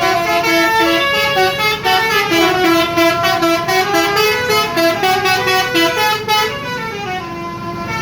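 Indonesian 'telolet' bus horn playing a fast melody: short, bright multi-tone notes changing pitch several times a second, getting quieter near the end.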